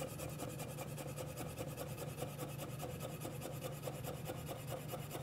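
Kitchen knife chopping carrot matchsticks into a fine dice (brunoise) on a cutting board: quick, even, soft taps of the blade, several a second.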